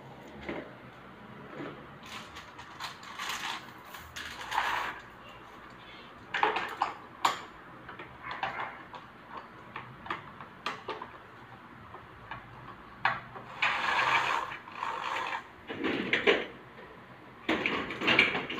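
Combi blind being handled and fitted: scattered clicks, knocks and rattles from the headrail going into its brackets and the bead chain and clutch mechanism being worked.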